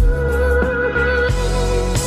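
Background music with a steady beat and long held melodic notes, the video's outro track.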